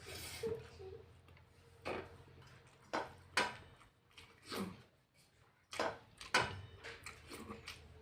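Close-up mukbang eating sounds: mouth clicks, smacks and crunches while chewing food, coming about once a second, over a faint steady hum.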